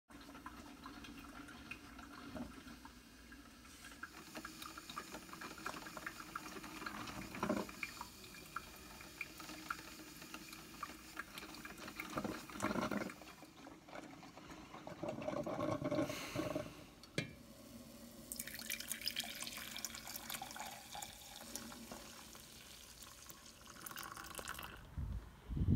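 Drip coffee maker brewing, with soft liquid sounds, then coffee poured from the glass carafe into a ceramic mug near the end.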